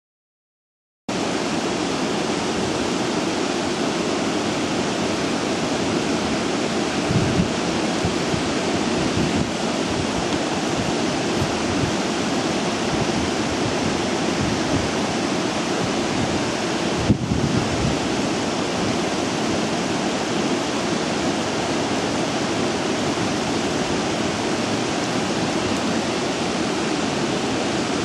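Steady outdoor rushing noise with a gusty low rumble, starting suddenly about a second in, with one sharp click about two-thirds of the way through.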